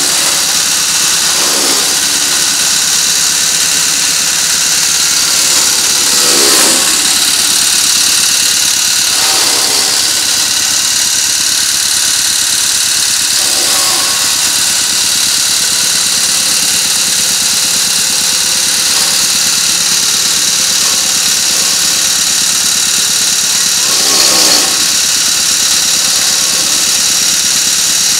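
A generator engine and an electric chaff cutter running together, chopping straw. The note dips in pitch briefly about five times as bundles of straw are fed in and cut, loudest near the end.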